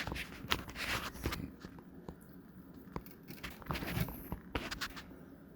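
Hands working the plastic bulb socket and housing of a Honda Odyssey's third brake light: a string of small plastic clicks, scrapes and rustles, busiest in the first second and again about three to five seconds in.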